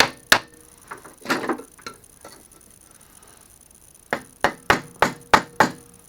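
Rubber mallet tapping wooden wedges into place under a table saw's mobile base: two knocks near the start, then a quick run of about seven knocks, some three or four a second, from about four seconds in.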